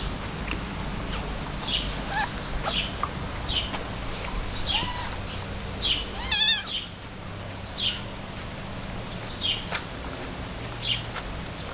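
Very young kittens mewing: short high-pitched cries about once a second, with one louder, wavering cry about six seconds in.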